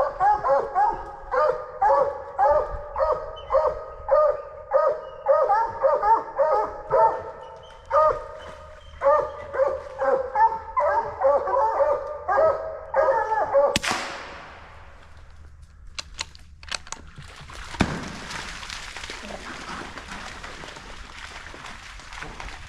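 Coonhounds barking steadily and rapidly, two dogs overlapping at about two barks a second. The barking stops about 13 seconds in with a sudden burst of noise, and a steady hiss fills the last few seconds.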